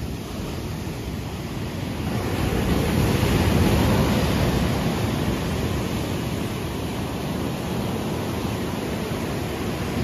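Ocean surf breaking on a sandy beach and washing up the shore as foam, swelling to its loudest about three seconds in, then settling into a steady wash.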